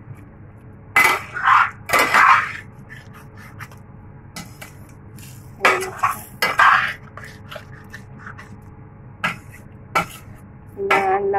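A spoon scraping and stirring through thick chicken curry in a cooking pot. There are four scraping strokes in two pairs, one pair near the start and one about halfway through, with a few light knocks against the pot between them. The sauce has just been thickened with flour.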